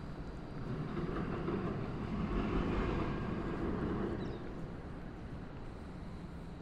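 A vehicle passing through the city street: a rumble that swells about a second in, peaks near the middle and fades away, over a steady low city hum.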